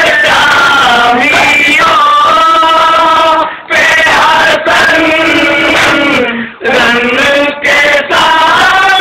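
Men's voices chanting a nauha, a Shia mourning lament, unaccompanied, in long held melodic lines, with two short breaks for breath.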